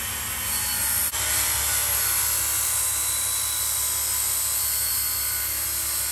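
Handheld electric belt file running steadily with an 80-grit sanding belt, grinding the steel edge of an axe.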